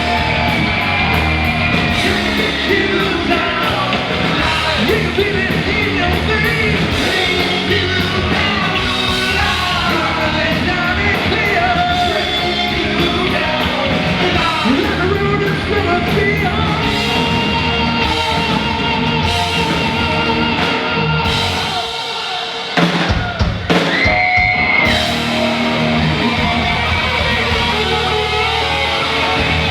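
Rock band playing live: drum kit, electric guitars and a singer, loud and dense, with a brief drop about 22 seconds in before the full band crashes back in with a held high note.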